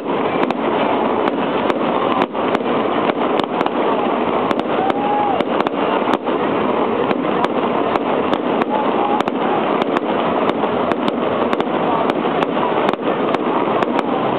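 Aerial fireworks going off: a rapid, irregular run of sharp pops and bangs, two or three a second, over a steady dense hiss.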